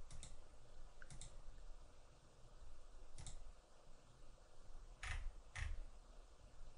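A computer mouse clicking about six times at irregular intervals, the two loudest clicks about half a second apart near the end, over faint room hiss.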